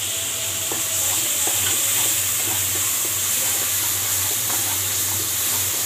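Onion-and-tomato masala sizzling steadily in hot oil in a non-stick pan while a wooden spatula stirs it, with faint scattered scrapes and taps of the spatula against the pan.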